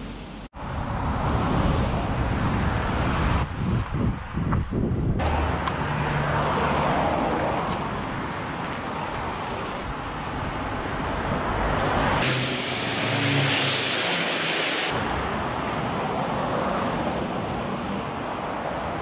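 Road traffic noise: the steady rush of cars passing on a road, swelling and fading, broken by several abrupt cuts where the sound is edited.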